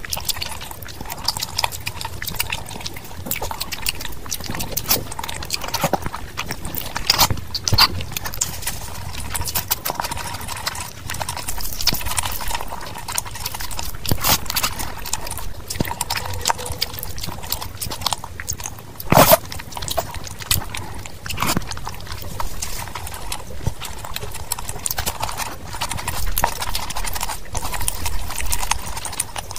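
Close-miked eating sounds: fingers mixing and squeezing rice into oily mutton curry, with wet chewing and mouth clicks in a dense, irregular run of small clicks. One sharper click stands out about two-thirds of the way through.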